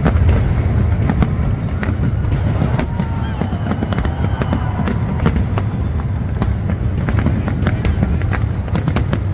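Large fireworks display: shells bursting in a continuous deep rumble, with many sharp cracks and pops throughout.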